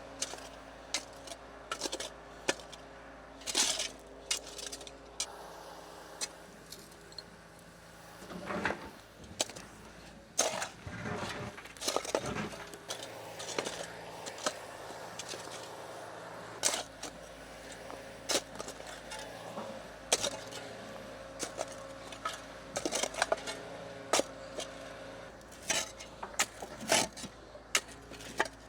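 Irregular clinks, knocks and scrapes of hand tools working broken concrete rubble, with faint steady tones underneath.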